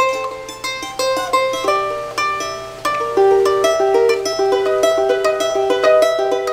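Solo charango playing a melody in quick plucked notes on its paired strings.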